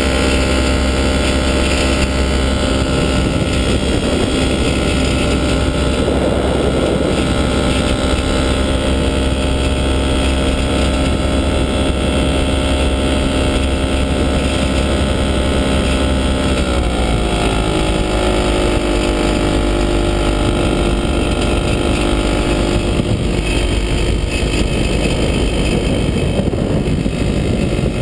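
Falcon XP ultralight aircraft's engine running steadily in flight. About two-thirds of the way through, its pitch drops as the engine slows, then holds steady at the lower speed.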